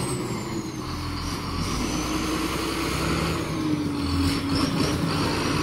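John Deere 6530 tractor's diesel engine running as it drives over a grass silage pit, rolling it; the engine note sags a little about halfway through and then picks back up, with a faint high whine above it.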